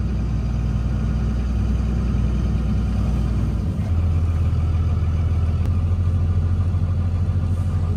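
Diesel pickup with a 24-valve Cummins, heard from inside the cab while driving: a steady low engine drone. The engine note changes about four seconds in.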